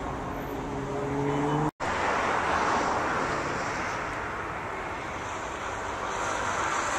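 Road traffic: a vehicle engine hums with a slowly rising pitch, the sound cuts out for an instant, then a steady wash of passing cars follows, swelling now and then.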